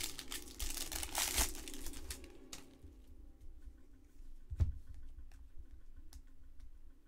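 Plastic wrapper of a trading-card pack being torn open and crinkled for the first two and a half seconds, followed by a few light clicks and a soft knock about four and a half seconds in.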